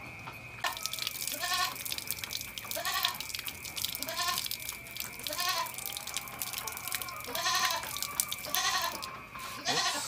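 A young goat kid bleats repeatedly, short wavering calls about once a second. A water tap runs with a steady hiss under them.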